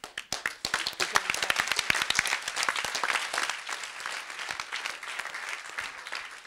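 Audience applauding. The applause starts abruptly, swells within the first second, then slowly thins and fades.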